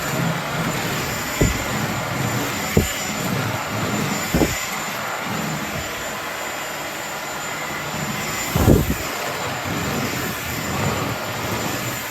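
Cordless stick vacuum cleaner running with a steady whine, with a few low knocks as the floor head bumps about.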